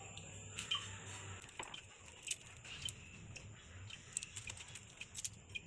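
Faint scattered ticks and light crackles from two bread slices toasting on a hot iron tawa, over the low steady hum of the gas burner beneath it.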